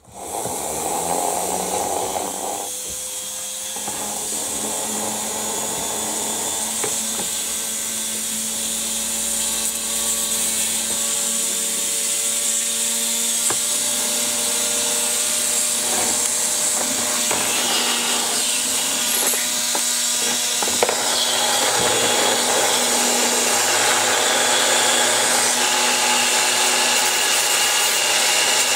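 Corded handheld rotary tool with a sanding drum running steadily, grinding down the plastic of a small LED bulb to make it fit: a steady motor whine with a hiss, its pitch shifting slightly as the drum is pressed on and eased off.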